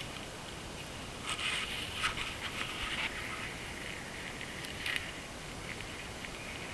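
A hiker with a backpack moving through dry grass and brush: rustling and scraping, strongest between about one and three seconds in, with a couple of light clicks.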